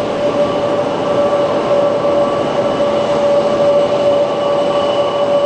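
Kawasaki P-1 patrol aircraft's four IHI F7-10 turbofan engines running as it taxis: a loud, steady high whine over a broad rush of engine noise.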